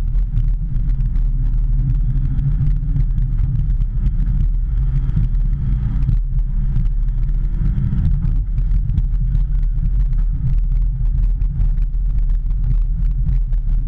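Hitachi ZX210 hydraulic excavator's diesel engine running steadily, a low, even drone.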